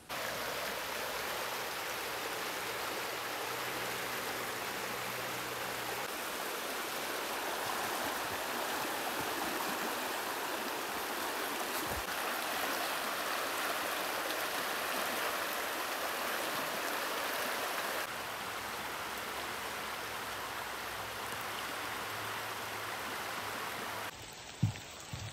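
Shallow rocky river running over riffles and rapids: a steady rush of water that drops slightly in level twice late on. A brief knock near the end.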